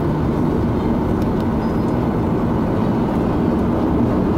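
Steady low rumble and hum inside the cabin of a Boeing 737-800 taxiing, its CFM56 jet engines running at low thrust.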